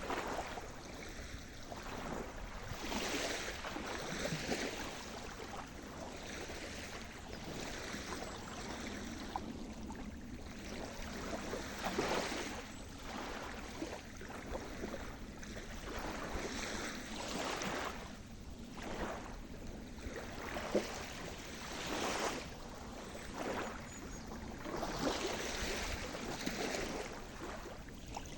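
Sea surf: waves breaking and washing up the shore in repeated surges every few seconds, over a steady low rush of water.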